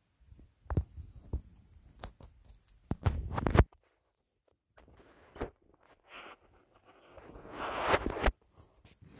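Fabric rustling and scattered knocks of handling right at the phone's microphone, in irregular bursts, with the two loudest rustles about three seconds in and near the end.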